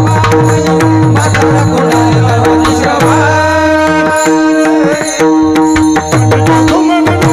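Kirtan music: a hand drum played in fast, dense strokes over steady held drone notes, with frequent sharp metallic strikes. About three seconds in, a higher chord-like set of notes is sustained for a second or two.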